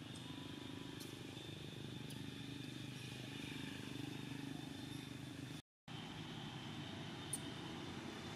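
Steady low outdoor background hum with a faint thin high tone above it and a few faint clicks. The sound cuts out completely for a moment just after the middle.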